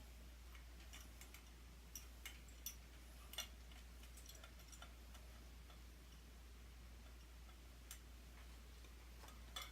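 Near silence with a low steady hum and a few faint, scattered clicks and taps, as of small ceiling-fan parts and wires being handled.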